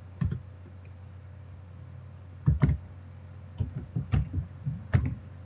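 Computer keyboard keys being typed: a scattered run of sharp key clicks, one near the start and a quicker cluster from about two and a half seconds in.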